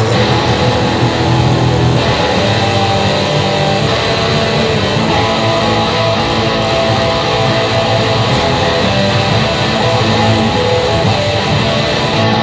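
Intro music: a loud instrumental track driven by electric guitar.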